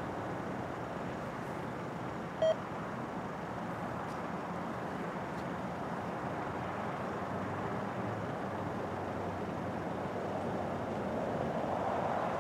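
Road traffic: cars and pickups driving past the level crossing, a steady hum of engines and tyres, with one vehicle coming closer near the end. A single short beep sounds about two and a half seconds in.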